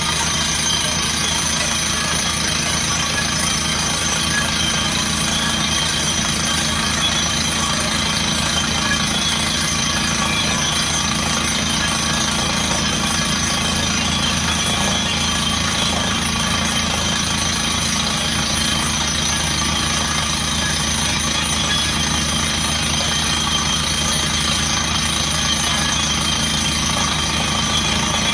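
Truck-mounted water well drilling rig running steadily under test: a constant engine drone with a dense, rapid rattle-like pulsing.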